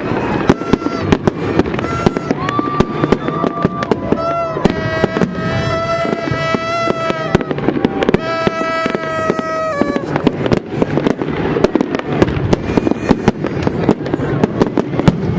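Fireworks going off in a dense run of sharp bangs and crackles. Party horns are blown in several steady buzzing blasts over them, the longest starting about four and a half seconds in and ending about ten seconds in.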